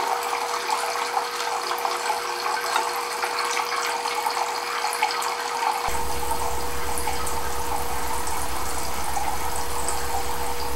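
Water streaming from a Kelvin water dropper's nozzles into its metal cans, a steady trickling hiss, while the generator builds up charge. A thin steady hum runs underneath, and a low buzz comes in about halfway through.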